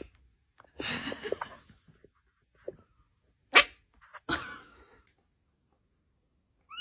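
A cat making several short, sharp bursts of noise, with dead silence between them; the loudest is a sudden sharp one about three and a half seconds in.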